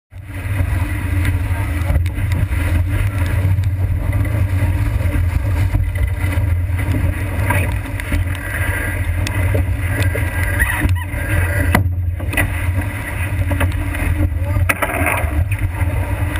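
Steady low rumble of wind and rushing water as a heeled sailing yacht drives hard through rough seas, with spray breaking over the deck.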